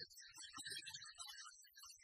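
Near silence, with faint background music.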